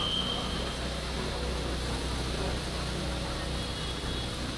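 Steady ambient noise of a busy airport terminal curbside: an even low hum and hiss of traffic and crowd. A faint high steady tone sounds briefly near the end.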